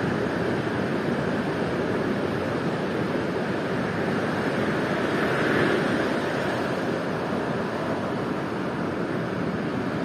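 Ocean surf washing steadily, swelling briefly a little past halfway.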